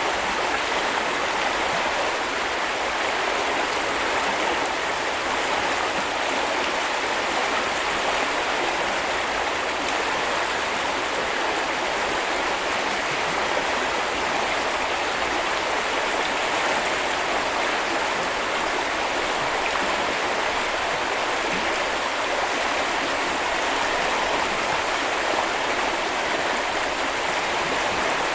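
Small river or brook flowing steadily, a continuous rushing and babbling of water.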